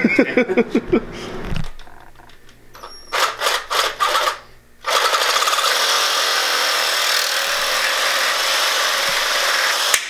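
Ryobi cordless reciprocating saw cutting through PVC pipe: a few short knocks and bursts first, then from about halfway the saw runs steadily through the cut.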